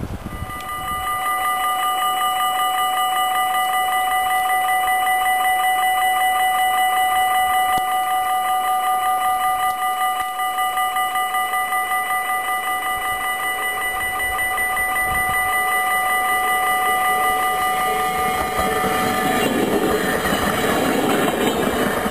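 Railway level-crossing bell ringing with a fast, even pulse, stopping shortly before the end. As it stops, an electric passenger train arrives and passes with a rising rumble of wheels on the rails.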